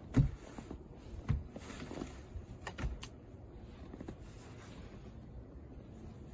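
Snow brush sweeping and scraping snow off a car's windshield, with several dull knocks in the first three seconds, the loudest right at the start, and softer brushing after.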